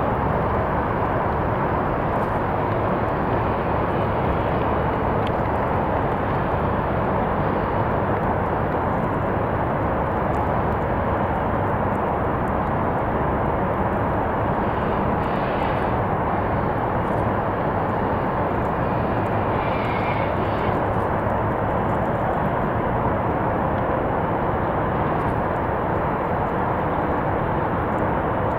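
Boeing 737-800's CFM56-7B jet engines running at low taxi thrust, a steady, even rush of jet noise.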